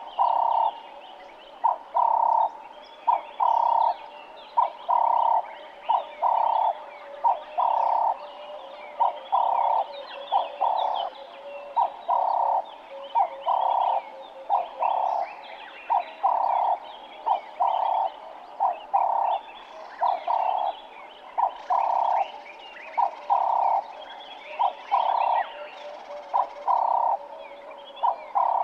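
Ring-necked dove (Cape turtle dove) cooing over and over in a steady rhythm, a short note then a longer one, repeating without pause. Faint chirps of other birds sound behind it.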